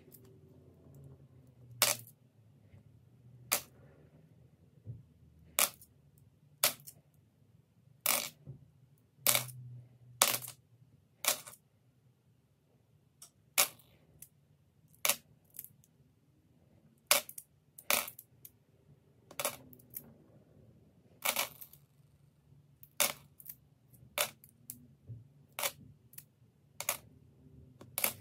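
Australian $1 coins (aluminium-bronze) being set down one at a time, each making a sharp clink. The clinks come about once a second, unevenly spaced, as each coin is checked and put aside.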